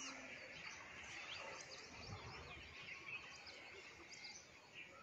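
Faint chirping of several small birds, many short overlapping chirps, over a low steady background hiss.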